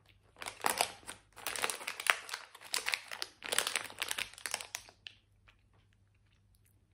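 Crinkling of a chocolate's wrapper as it is unwrapped by hand, in several bursts over about four and a half seconds, then stopping.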